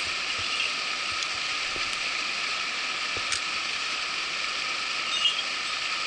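Mountain headwater stream rushing steadily over rocks, with a few faint clicks.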